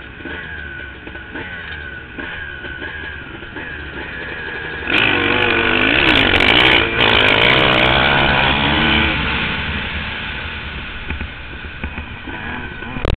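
A line of motocross bikes revving in short rising-and-falling bursts at the start, then all accelerating at full throttle together about five seconds in as the race starts, loud and close. The engine noise eases gradually over the last few seconds as the pack heads into the first turn.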